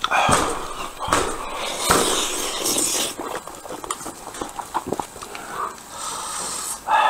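A man eating saucy pork close to the microphone, with loud, wet chewing and smacking bites. The bites come as irregular bursts, loudest in the first three seconds, with softer chewing after.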